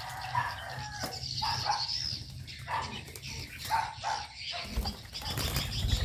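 Aviary birds chirping and calling in short repeated notes, with a burst of wing flapping near the end as a spotted dove flies down to a feed bowl.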